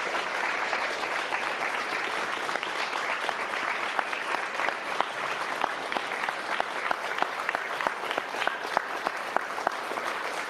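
Audience applauding, the clapping thinning into more separate, distinct claps in the second half.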